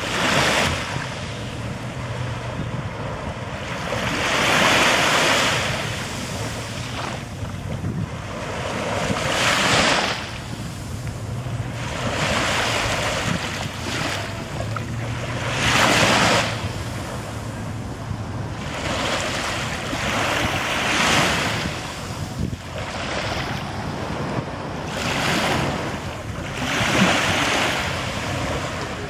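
Small sea waves breaking and washing up onto a sandy beach, the surf swelling and fading every few seconds.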